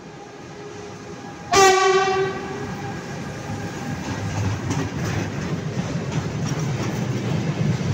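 A Renfe class 253 electric locomotive gives one horn blast, just under a second long, about a second and a half in, as it runs through the station without stopping. Then comes the growing rumble and clatter of the freight train's empty flat wagons rolling past at speed.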